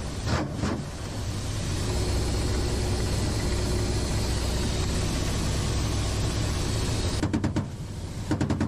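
Steady turbine and rotor noise heard inside the cockpit of a Russian attack helicopter in low flight. Short bursts of rapid weapon fire break in just after the start and twice near the end.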